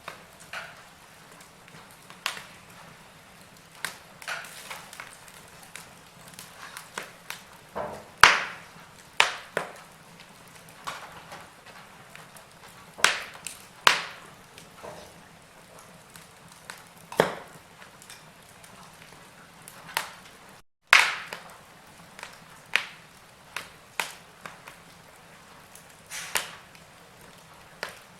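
Log fire crackling: irregular sharp pops and snaps from burning wood over a faint steady hiss. The sound cuts out for a split second about two-thirds of the way through.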